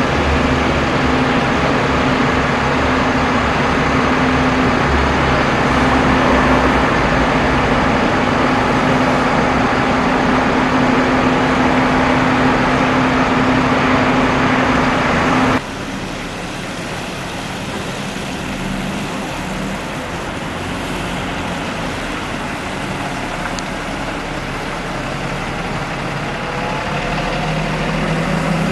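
A large vehicle's engine running with a steady hum. About halfway through the sound cuts off abruptly to a quieter engine, which rises in pitch near the end as it revs up.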